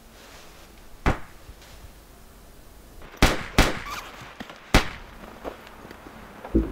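Four sharp gunshots: one about a second in, two in quick succession about three seconds in, and a last one near five seconds.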